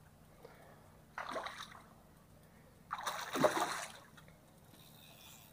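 Hooked snook thrashing at the water's surface while being fought on a rod, two splashes about a second apart, the second louder and longer.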